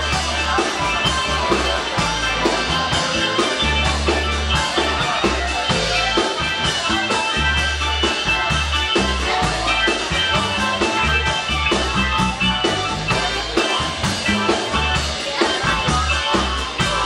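Band music with a drum kit keeping a steady beat over a bass line.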